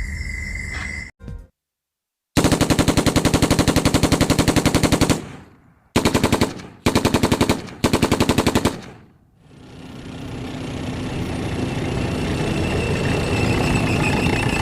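Automatic machine-gun fire in a movie's Dolby Atmos soundtrack: after a brief silence, one long burst of very rapid shots lasting about three seconds, then three short bursts. A broad, steadily building swell of noise follows and grows louder toward the end.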